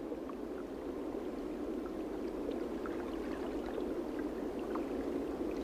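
Underwater reef ambience: a steady low rush of water with faint scattered ticks.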